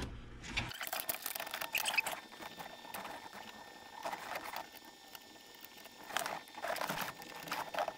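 Lower center-console trim piece being handled and fitted back into place by hand: scattered light clicks, taps and rustling.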